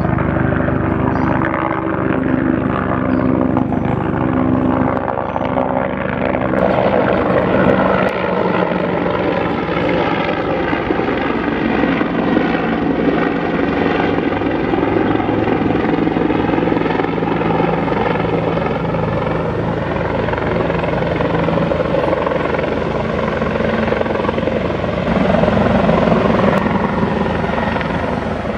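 Bell 412 twin-engine helicopter flying close by at low altitude, its four-blade main rotor beating steadily. The sound turns brighter and fuller about six or seven seconds in.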